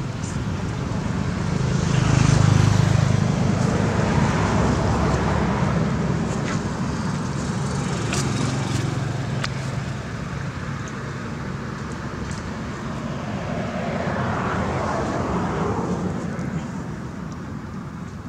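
Road traffic passing, a steady rumble that swells louder about two seconds in and again about fifteen seconds in, as vehicles go by. A few short clicks come through near the middle.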